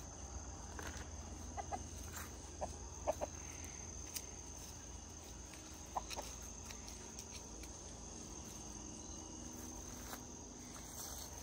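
Backyard chickens clucking softly, a handful of short clucks in the first half, over a steady high drone of insects.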